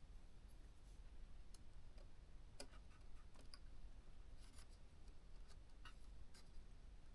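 Faint, irregular small ticks and scrapes of tweezers working at the cooling fan's cable plug inside a ThinkPad T430 laptop. They are scattered a second or so apart over a near-silent background.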